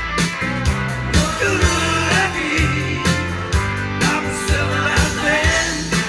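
Rock music with a bass line, guitar and a regular drum beat, played through a Pioneer SA-8800 integrated amplifier during a listening test.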